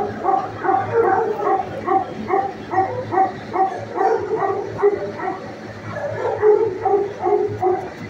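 Shelter dogs barking over and over in a steady run, about three barks a second, loudest around six and a half seconds in.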